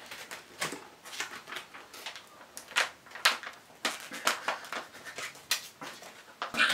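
Paper and card crackling, crinkling and ripping as a paperback's front cover is bitten and wrenched: a dense run of irregular sharp rips and crackles, the loudest near the end.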